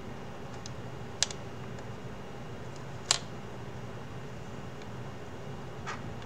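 Small hard-plastic clicks as a 3D-printed headset hinge and its pins are worked into place with a screwdriver: two sharp clicks about two seconds apart, a few faint ticks and a softer click near the end, over a steady background hiss.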